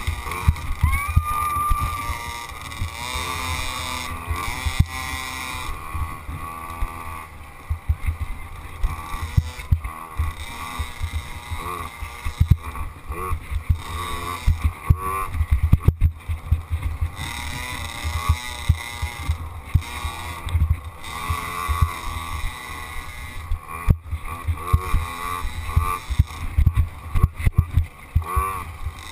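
Small youth dirt bike engine revving up and down as it is ridden hard along a rough trail, with heavy low buffeting and frequent knocks as the bike bounces over bumps.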